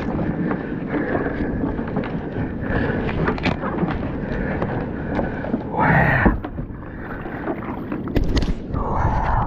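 Handling noise on a plastic fishing kayak as a large Spanish mackerel is pushed down into the hull well: knocks and rubbing against the hull over a steady bed of wind on the microphone and water against the boat. There is a louder rush about six seconds in, and fingers brush the camera near the end.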